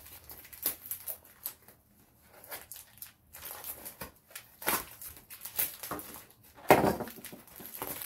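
Fingers picking and scratching at the packing tape and label of a wrapped parcel: irregular scrapes, crinkles and taps, with one louder scrape near the end.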